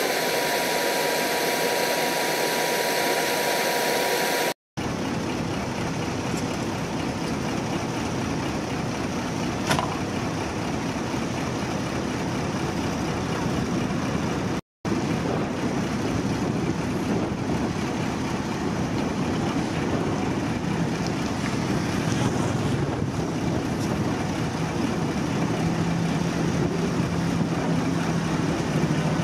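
Heavy crane trucks' diesel engines running steadily, with a steady high whine over them for the first few seconds. The sound breaks off sharply twice, and a low steady hum rises near the end.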